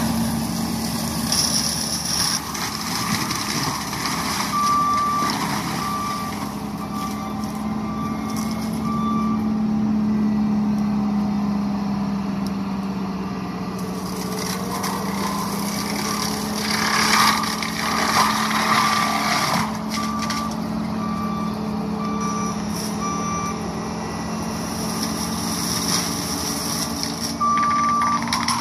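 John Deere 333G compact track loader with an MH60C mulching head running hard, its engine and spinning drum holding a steady drone while the head grinds into brush, louder in bursts around the middle. The machine's backup alarm beeps in runs several times as it reverses.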